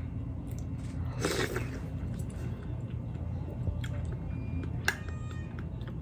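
Close-miked chewing and biting of boiled pork on the bone, with wet mouth noises and a few sharp clicks. A steady low hum runs underneath.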